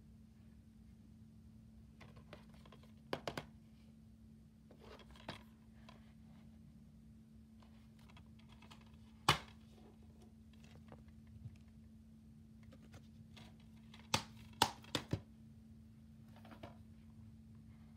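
Plastic DVD cases being handled by hand: scattered clicks and taps with some rustling, and a few sharper knocks, the loudest about nine seconds in and a quick cluster of three around fourteen to fifteen seconds. A steady low hum sits underneath.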